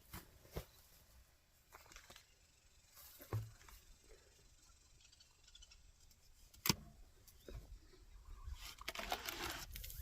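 Faint, sparse clicks and knocks, with one sharp click about two-thirds of the way through and a soft low thump a third of the way in.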